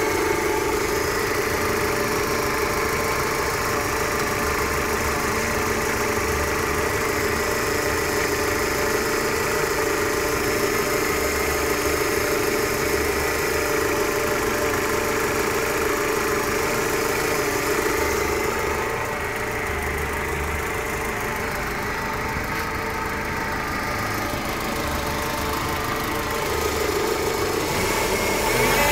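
Kia Sephia idling with a steady drone from its hydraulic power steering. The drone eases slightly about two-thirds of the way through and comes back near the end. It persists even though the power steering reservoir and pump have been cleaned, and its cause is unknown to the owner.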